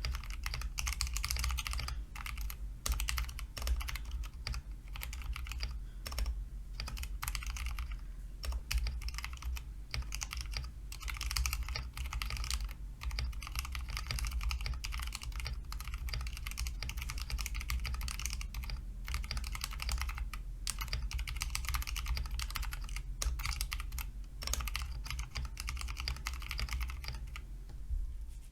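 Fast, continuous typing on a mechanical keyboard: a dense, uneven stream of key clacks with a steady low hum underneath.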